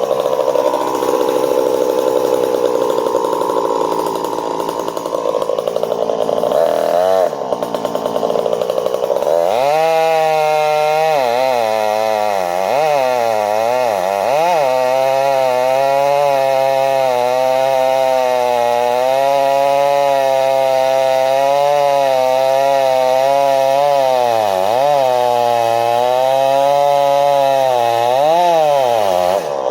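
Two-stroke chainsaw running hard while cutting up a fallen red elm: a dense, noisy engine drone under load for the first nine seconds or so, then a clearer engine note whose pitch dips and recovers several times as the load and throttle change, falling off sharply near the end as the throttle is let go.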